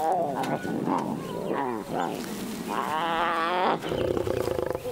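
Lion cubs squealing and growling as they jostle to suckle: several short wavering cries, then a longer one about three seconds in. Near the end a lioness takes over with a lower, buzzing growl at the cubs crowding under her.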